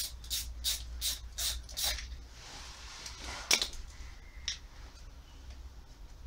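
Ratchet wrench worked in short strokes, a clicking burst about three times a second for about two seconds, followed by a single sharp metallic click a little past halfway and a fainter one soon after.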